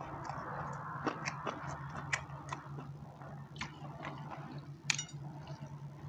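Metal spoon clicking and scraping on a ceramic plate while someone eats rice and chews, with one sharper ringing clink about five seconds in, over a steady low hum.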